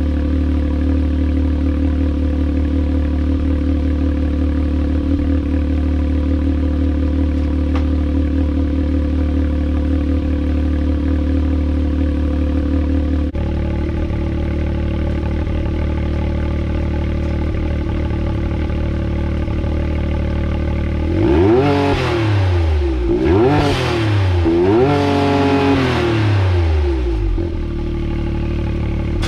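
Can-Am Maverick X3 XRC RR's turbocharged three-cylinder engine idling through a freshly fitted cat-delete exhaust and aftermarket muffler, shortly after a cold start. The idle note changes about halfway through. Near the end it is revved three times in quick succession, each rise falling straight back, before it returns to idle.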